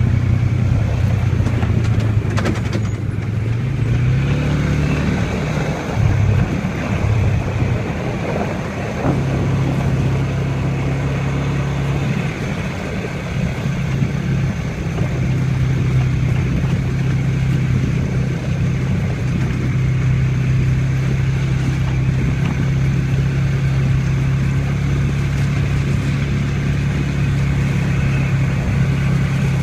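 ATV engine running under throttle on a trail ride. Its pitch rises a few seconds in, then goes uneven and choppy for a few seconds before settling into a steady cruise.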